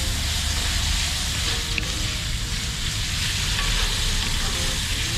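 Sausage frying in a pot on a stove, a steady sizzling hiss, with a low steady rumble underneath.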